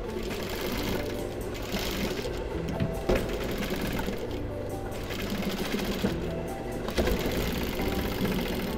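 Siruba industrial sewing machine running, stitching a zipper onto denim, over background music.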